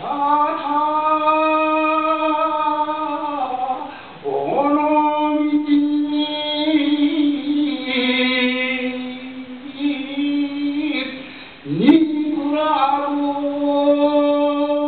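Solo unaccompanied shigin, the Japanese chanting of a classical poem, by an elderly man. He holds long drawn-out notes on a nearly steady pitch with a wavering ornament, in three long phrases; the second and third each begin with a sliding scoop up into the note.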